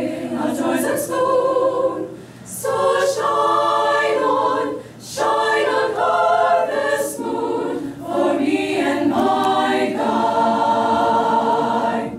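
Mixed choir singing unaccompanied in harmony, in phrases broken by short breaths, ending on a chord held for about two seconds that is released near the end.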